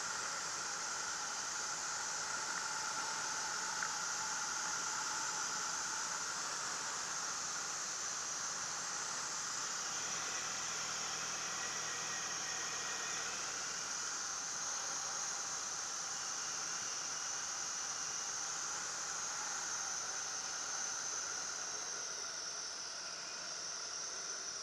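Steady wind rush and engine noise in the open cockpit of a Marquart Charger biplane on final approach and touchdown, mostly an even hiss that eases slightly near the end.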